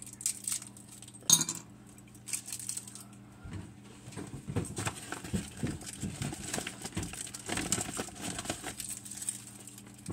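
Jolly Rancher hard candies being unwrapped by hand: plastic wrappers crinkling, with small clicks and clinks of the candies, busier in the second half. A single sharp knock about a second in is the loudest sound, over a faint steady low hum.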